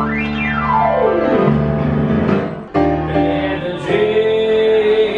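Grand piano played live: a fast sweep up the keyboard and back down, then a few chords with a short break. About four seconds in, a male singer starts a long held note over the piano.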